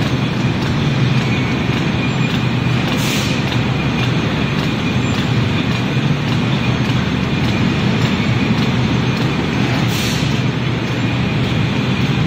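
Bottle labeling machine and its conveyor running steadily, a constant machine hum. A short hiss comes about three seconds in and again about ten seconds in.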